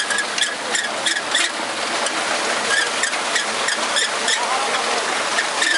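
Tractor-drawn potato harvester running, a dense irregular clatter over a steady hiss.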